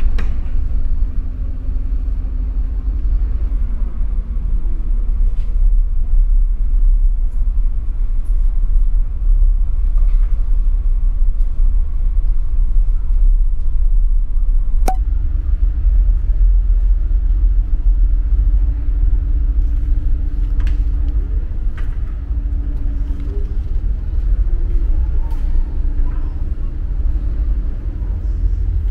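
Passenger ferry's engines heard on board: a steady, loud low rumble with a faint droning hum, which shifts slightly about halfway through.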